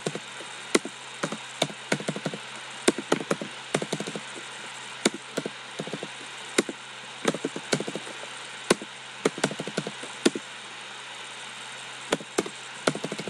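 Computer keyboard keys clicking in short irregular runs as numbers are typed in, over a steady faint hiss. There is a quieter pause a little after ten seconds in.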